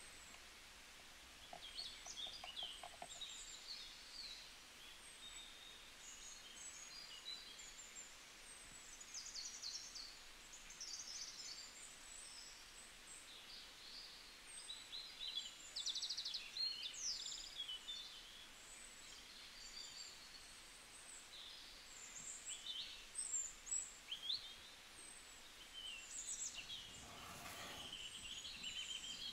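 Small birds chirping and singing, many short high calls scattered throughout over faint background noise.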